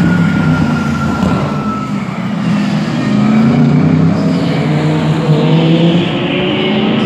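Race car engines at speed on track: one passing with its pitch falling over the first two seconds, then engines rising in pitch as they accelerate.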